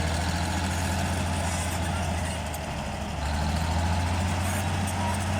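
Komatsu D65-6 bulldozer's diesel engine running steadily with a low hum. It dips a little for about a second near the middle, then picks up again.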